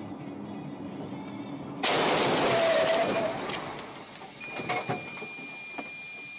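Car windshield struck hard by a flying object about two seconds in and shattering: a sudden loud crash that turns into a harsh hiss and slowly dies away, with a few sharp knocks after it. A steady high tone sounds from about halfway through. Before the hit, the car's cabin noise.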